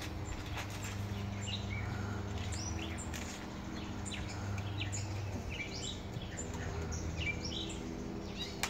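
Small birds chirping in short, quick calls scattered throughout, over a low steady hum.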